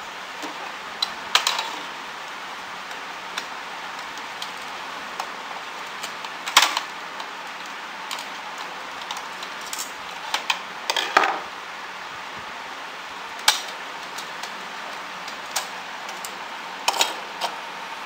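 Scattered sharp clicks and knocks of hard plastic parts in a disassembled Epson L-series inkjet printer's carriage mechanism being handled and worked with a screwdriver, with a small cluster of clatter about halfway through, over a steady background hiss.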